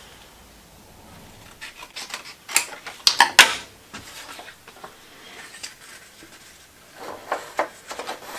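Photographic paper and a tin can being handled: scattered rustles, scrapes and clicks, loudest in a cluster about three seconds in and again near the end.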